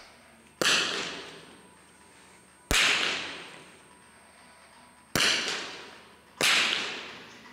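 Four .22 smallbore target rifle shots, spaced irregularly over several seconds. Each is a sharp crack followed by a long echo in the hall.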